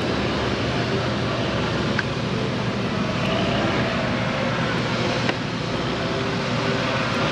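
Steady din of sawmill machinery running, with sharp clicks about two and five seconds in.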